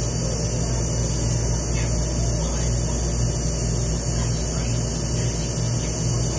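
A steady low hum with a constant hiss over it, with a few faint, brief voices in the distance.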